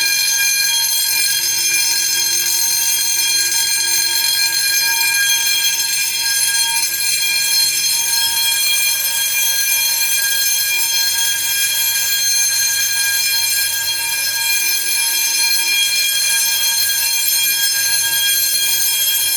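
Fire alarm bells ringing steadily and continuously: a Simplex 2901-9724 10-inch motor bell together with an Edwards 6100D Durabell 6-inch vibrating bell, sounding on continuous after a pull station was pulled.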